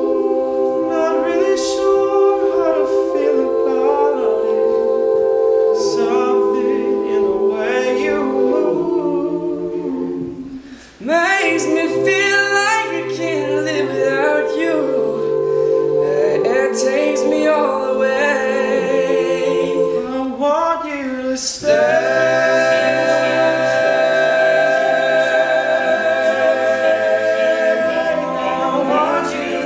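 Male a cappella group singing in close harmony, holding chords, with a bass voice entering partway through and a brief break about eleven seconds in.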